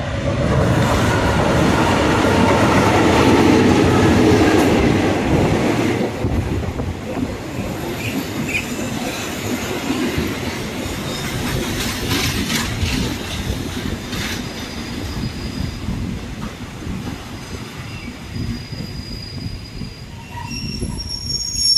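Diesel-hauled passenger train of the State Railway of Thailand passing close, the locomotive's rumble loudest first, then the coaches rolling by and slowing. Thin high-pitched wheel and brake squeals come and go, bunching up near the end as the train brakes to its stop.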